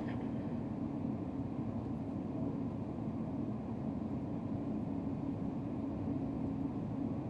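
High-speed train running at speed, heard from inside the carriage as a steady, low, even rumble.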